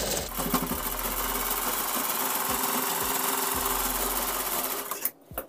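Satyam sewing machine running steadily as it stitches a seam through cotton kurti fabric, then stopping about five seconds in.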